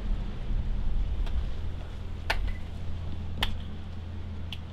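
Footsteps in a stone-floored tunnel, four sharp clicks about a second apart, over a low steady rumble with a hum.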